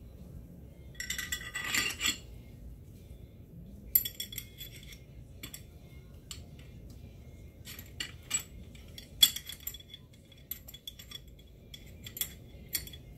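Steel parts of an AMT Automag V pistol clinking and clicking as the slide, barrel and guide rod are handled and fitted together: a ringing metal rattle about a second in, then a string of separate sharp clicks.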